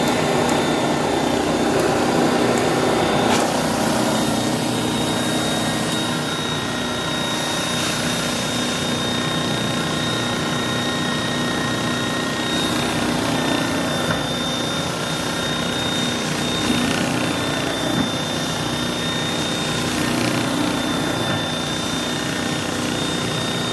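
Advance AquaClean 16XP carpet extractor running steadily, a constant motor drone with a high whine.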